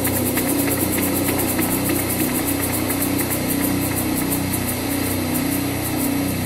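A pair of maracas shaken in a fast, even rhythm, about seven rattles a second, over a steady low drone.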